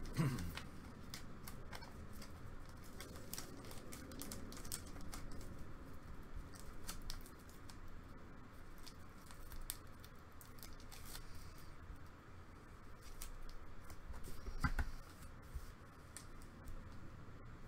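Thin plastic card sleeve crinkling and crackling in a series of small irregular clicks as a trading card is handled and worked in or out of it, with a single soft knock near the end.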